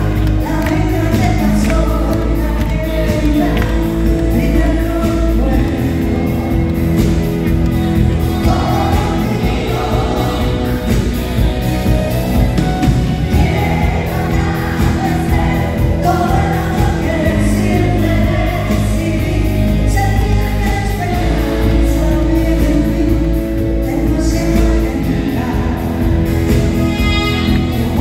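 A woman singing lead in Spanish over a live band of keyboards, drums and guitars, with backing singers, amplified through the PA in a theatre hall.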